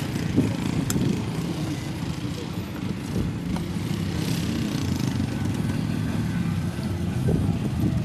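Vehicle engine running steadily at low revs while driving off-road, with a single sharp knock about a second in.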